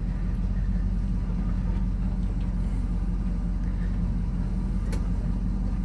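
Truck engine running steadily at low speed, a constant low drone with no revving, as the truck creeps along a rutted, muddy dirt trail. A single sharp click sounds about five seconds in.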